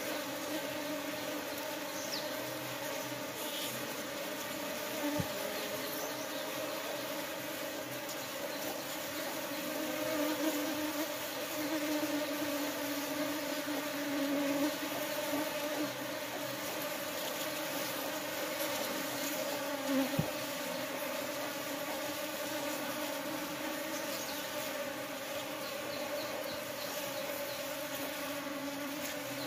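Honeybees buzzing in a steady drone as many of them crowd the hive entrance to fight off invading ants, a little louder midway.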